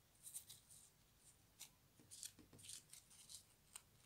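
Faint scratchy rustles, several short ones, of grosgrain ribbon being folded and pinched between the fingers.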